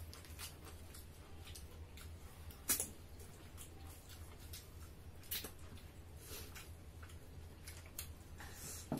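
Eating sounds: scattered mouth smacks and small clicks of people chewing and eating with their fingers, the sharpest about three seconds in, over a steady low hum.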